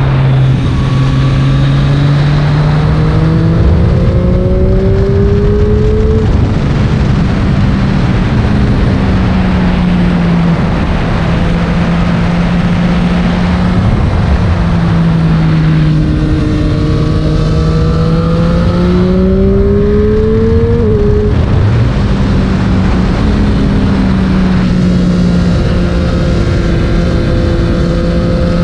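Triumph Street Triple 765 RS's 765 cc inline three-cylinder engine under way. Its note rises as the bike pulls, then drops back, with a sharp fall about three-quarters of the way through, and holds steadier near the end, over a constant rush of wind and road noise.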